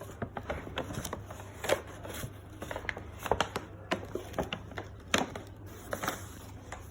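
Gift bag and wrapping rustling and crinkling in irregular crackles as the next present is pulled out.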